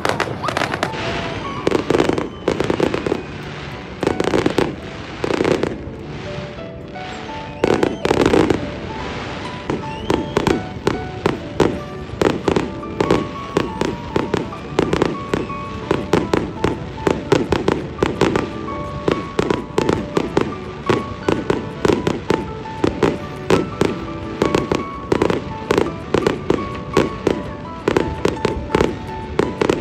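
Fireworks aerial shells bursting: a few separate booms in the first eight seconds, then a rapid, near-continuous barrage of bangs and crackle from about ten seconds in. Background music with a melody plays under it.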